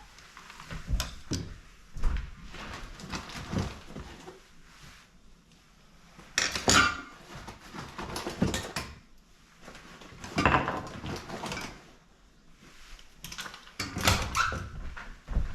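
Irregular clicks, knocks and scraping of a screwdriver and screws being worked into a KitchenAid stand mixer's aluminum housing, with tools handled and set down between bursts.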